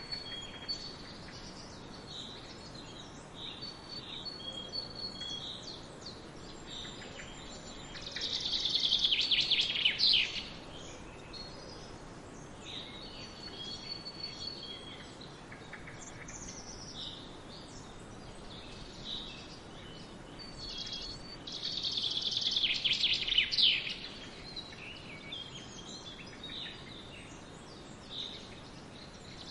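Birds chirping and calling over a steady faint hiss, with two louder, quick runs of song, about eight seconds in and again a little past twenty seconds.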